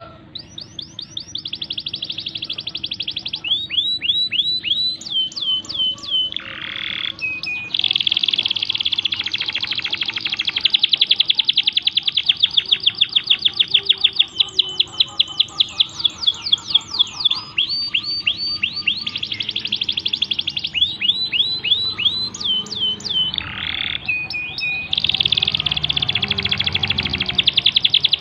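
Domestic canary singing nonstop: long, fast rolling trills alternating with runs of quick, downward-sweeping whistled notes, the phrases changing every few seconds with hardly a pause.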